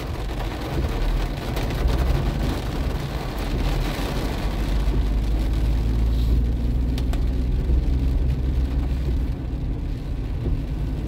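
Car cabin sound while driving on a wet road: a steady low rumble of engine and road with tyre hiss from the wet surface. The hiss eases off about halfway through.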